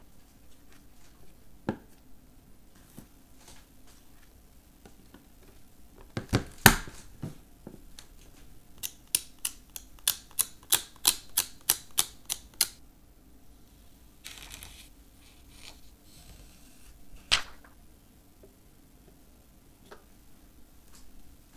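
Light taps on a phone's glass screen as a dust-removal sticker is dabbed over it, about a dozen quick taps at roughly three or four a second. A few louder knocks come before them, and one more click later on.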